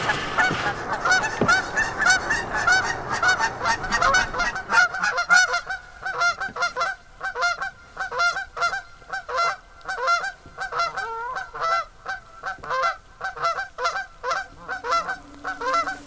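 A flock of birds calling: many short, repeated calls overlapping, several a second. A low steady hum comes in near the end.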